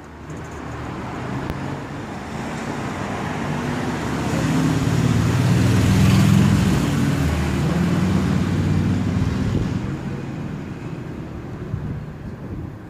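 A vehicle passing by: a low rumble with a light hiss that builds to a peak about six seconds in, then fades away.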